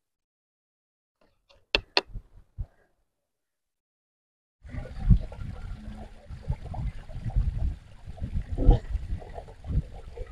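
A few sharp scrapes of a knife scaling small fish on a wooden board, then, from about four and a half seconds in, water gushing and splashing from a ground-level pipe as fish are rinsed under it, with a low rumble.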